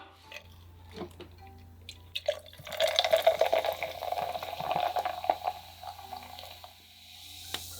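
Liquid sounds, like a drink being poured, with many small splashes, lasting about four seconds from a couple of seconds in.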